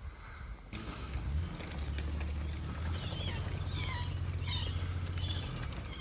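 Birds chirping in many short, gliding calls over a vehicle engine idling with a low, steady hum; the engine hum drops away near the end.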